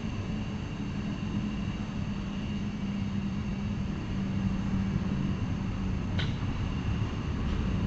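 Steady low background rumble with a constant hum, broken by one short sharp click about six seconds in and a fainter one just before the end.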